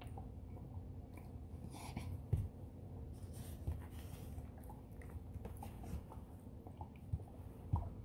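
Golden retriever puppy getting up off a towel-covered bed and walking away: soft rustling of the towel and a few dull paw thumps, the loudest about two seconds in and near the end.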